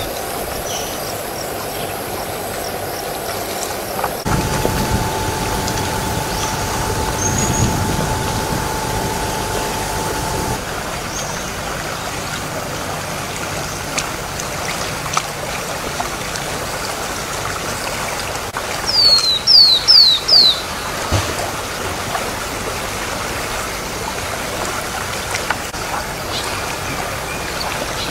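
Steady outdoor background noise, with a steady hum over a low rumble from about four to ten seconds in. About two-thirds of the way through, a bird gives four quick, falling calls.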